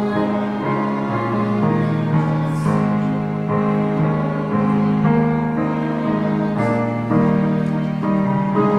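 Church keyboard playing a hymn in slow, held chords, each chord sustained and changing about every second.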